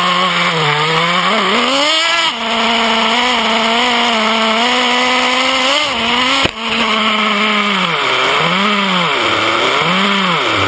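Traxxas Revo 3.3's small two-stroke nitro engine running close up at a steady high pitch, revving up briefly about two seconds in. A sharp knock comes about six and a half seconds in, and in the last few seconds the engine rises and falls in throttle blips about once a second.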